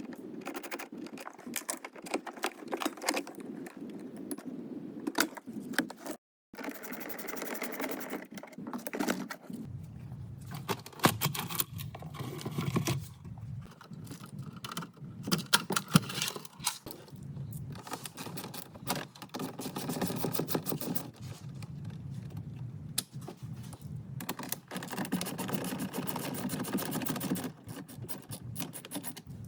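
Dense clicking, rattling and scraping of hand tools and plastic interior trim being worked loose from a car interior, with a brief dropout about six seconds in.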